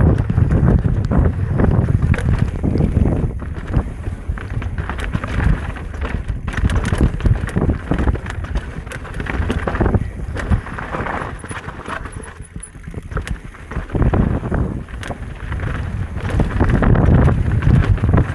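Electric mountain bike ridden fast down a rough dirt trail: tyres rolling over dirt and roots, with chain and frame rattling over the bumps, and wind buffeting the microphone. It eases briefly a little past halfway, then picks up again.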